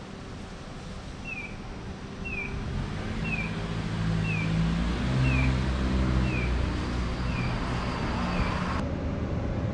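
Audible pedestrian crossing signal chirping: a short falling electronic tone repeated about once a second, eight times, stopping abruptly near the end. A vehicle engine grows louder and fades in the middle.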